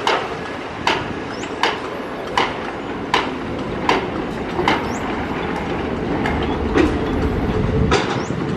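Heavy construction machinery running, with diesel dump trucks and a vibratory roller working together. A sharp click repeats about every three-quarters of a second, and a low engine rumble grows louder near the end.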